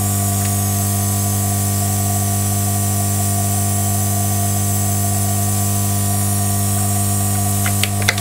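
Hot air rework station running: a steady hum with an even hiss of blown air over it. A few light clicks near the end.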